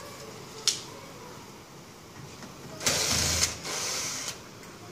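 A sharp click a little under a second in, then a handheld power drill runs in two short bursts, about half a second each, as it works at the top of a sliding door frame.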